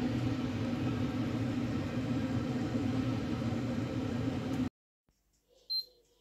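Steady mechanical hum with hiss that cuts off abruptly about four and a half seconds in. Near silence follows, broken by one short high beep.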